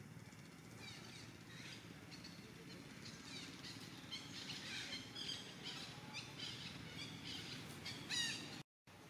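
Birds chirping in the forest: many short, high chirps and quick falling calls, densest and loudest shortly before the sound cuts out briefly near the end.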